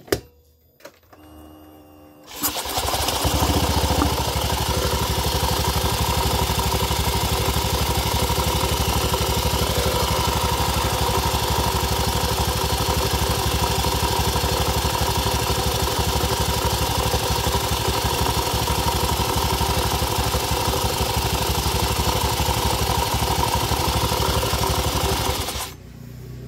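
Honda Vario 110 scooter's single-cylinder engine starting about two seconds in and idling steadily with the CVT cover off, then stopping near the end. A faint knocking comes from the rear pulley, which the mechanic puts down to a worn bearing inside the rear pulley. The knocking is not very clear with the engine running.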